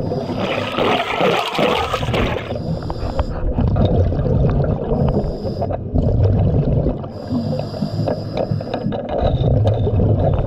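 A diver breathing through underwater breathing apparatus. Short hisses of inhaled gas come every couple of seconds, with a loud burst of bubbling exhaust near the start, over a steady low rumble of bubbles and water.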